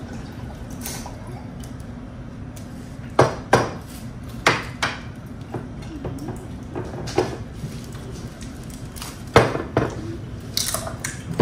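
Dishes and cutlery clinking and knocking at a meal table, a handful of sharp strikes at irregular intervals over a steady low background hum.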